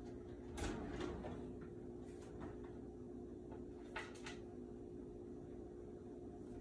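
Rummaging in a lower kitchen cabinet: a few knocks and clacks of cookware and a cabinet door, the loudest about half a second in and again around four seconds in, over a faint steady hum.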